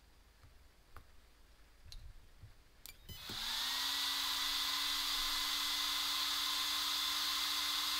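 Small cooling fan on a brushless-motor electronic speed controller spinning up about three seconds in and then running steadily with a powerful whir and hiss, after a few faint clicks as the power lead is touched on.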